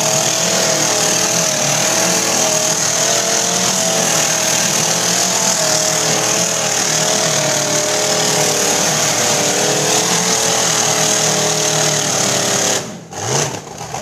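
Tube-chassis off-road buggy's engine held at high revs as its tyres spin and smoke on a steep dirt climb, a steady, slightly wavering note. Near the end the engine note drops off sharply.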